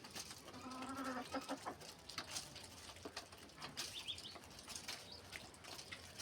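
Chickens clucking while feeding: one drawn-out call about half a second in, a few high chirps around the middle, and many short clicks and rustles from the birds moving and flapping.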